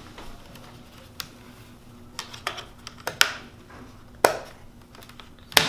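A series of sharp knocks and clacks, about seven spread irregularly over a few seconds, some with a short ringing tail, the loudest near the end.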